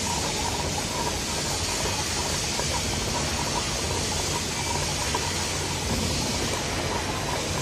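Electroslag welding in progress: a steady hiss over a low, constant hum.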